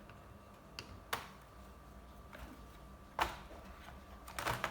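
A few sharp clicks and light knocks from plastic laptop parts being handled on a work surface. The loudest is a single knock a little after the middle, and a short run of clicks comes near the end.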